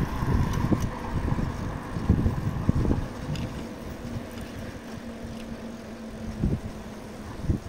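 Wind buffeting the microphone while riding a bicycle, strongest in the first few seconds and then easing. A faint steady hum runs through the middle, and two short thumps come near the end.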